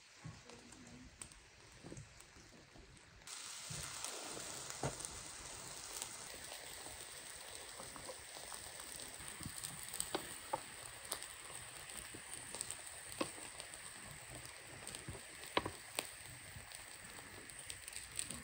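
Minced-chicken kebabs on skewers sizzling over a charcoal grill: a steady hiss with scattered crackles and pops. The sizzle gets louder about three seconds in.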